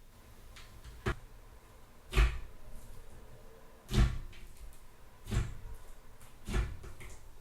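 Thick fluffy slime being pressed and stretched, giving five sharp popping snaps about a second or so apart as trapped air bursts out of it.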